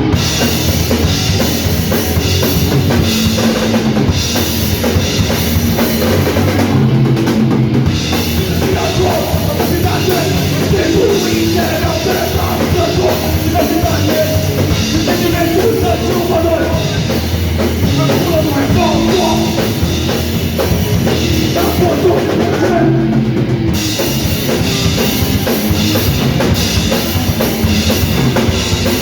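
Crust punk band playing live and loud, the drum kit driving it with a heavy bass drum, in the style of heavy metal. The cymbals drop out briefly twice, about eight and twenty-three seconds in.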